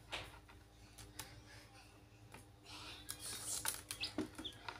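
Chicks pecking and scrambling on the floor of a plastic basin, with sharp taps and scratching, and a few short high peeps near the end.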